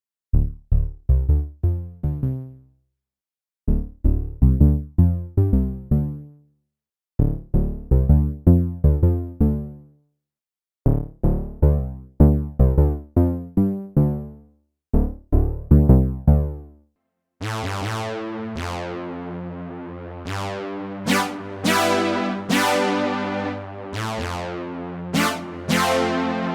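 MOK Miniraze software synthesizer playing demo patches: phrases of short, quickly decaying plucked notes about three seconds long with brief silences between them, then, about 17 seconds in, a fuller patch of sustained chords with sharp plucked accents over it.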